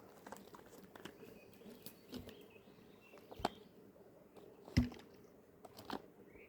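Scattered light clicks and knocks, two louder knocks about three and a half and five seconds in, with faint bird chirps in the outdoor background.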